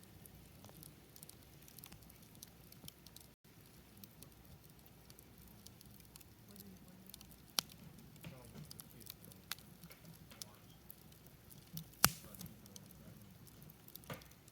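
Campfire crackling, with wood giving off irregular small snaps and pops; a few sharper pops stand out, the loudest about twelve seconds in.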